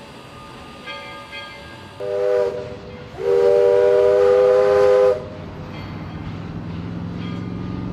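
Steam locomotive whistle blowing a short blast, then a longer blast of about two seconds, several notes sounding together as a chord. A low rumble builds after it.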